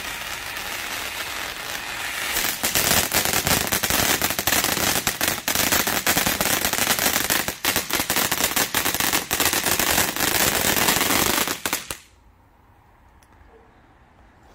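Phantom Fireworks Spark Plug box fountain burning: a steady hiss of spraying sparks that about two seconds in turns louder and fills with dense crackling, then cuts off abruptly a couple of seconds before the end as the fountain burns out.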